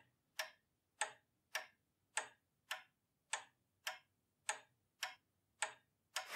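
Ticking-clock sound effect of a time bomb: crisp, evenly spaced ticks, just under two a second.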